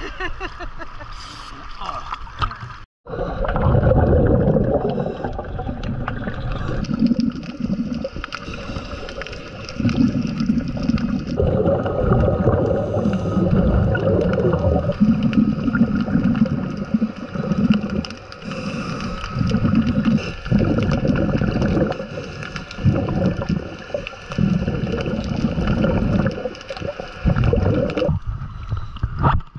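Muffled underwater bubbling and gurgling from divers breathing through SNUBA regulators, heard by a camera under the water. It comes in surges every couple of seconds, after the sound cuts out briefly about three seconds in.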